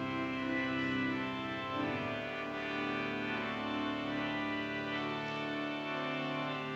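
Church organ playing slow, held chords, with the chord changing about two seconds in and again near five seconds.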